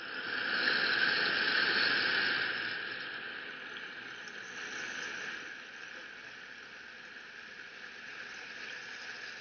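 Large plastic bags crumpled and slowed down to imitate ocean waves crashing: a rushing hiss that swells about a second in, then slowly ebbs away.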